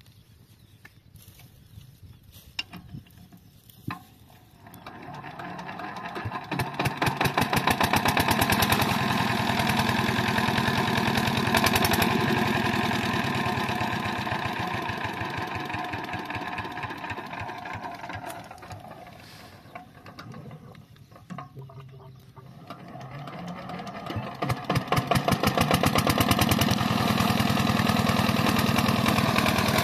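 Lister-type single-cylinder diesel engine driving an irrigation water pump. After a few quiet seconds with light clicks it comes up to speed with a fast, even beat. It slows almost to a stop about twenty seconds in, then picks up again and runs at full speed as the pump delivers water.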